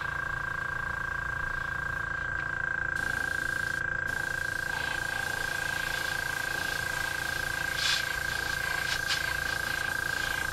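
Iwata airbrush spraying paint onto a lure, a hiss of air and paint that starts about three seconds in and comes in several short pulses near the end. A steady motor whine runs underneath throughout.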